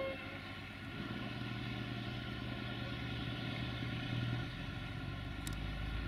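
Off-screen diesel rail vehicle's engine running with a steady low hum. The tail of a horn blast cuts off at the very start. About four and a half seconds in, the hum gives way to a deeper rumble, and a small click follows soon after.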